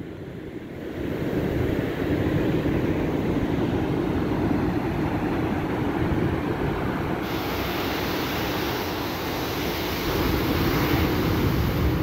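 Ocean surf breaking on a sandy beach, a steady rush of waves, with wind buffeting the microphone.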